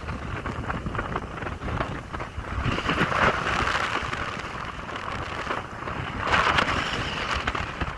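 Wind rushing and buffeting over the microphone of a phone filming from a moving vehicle, with road rumble underneath. The wind noise swells about three seconds in and again near the end.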